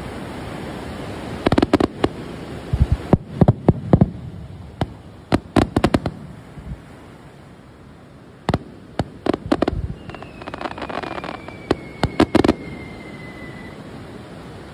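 Fireworks of an underwater starmine going off over the sea: clusters of sharp bangs and crackles, with a whistle lasting about three and a half seconds and falling slightly in pitch, starting about ten seconds in.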